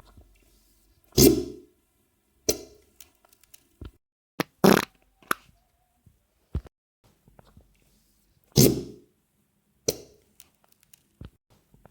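A series of wet, sputtering diarrhoea farts: four louder blasts a second or more apart, with smaller pops and crackles between them.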